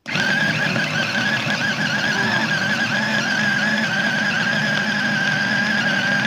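Rico rechargeable mini vegetable chopper's electric motor running steadily with a high whine as its blades chop tomatoes. It starts abruptly when the top button is pressed.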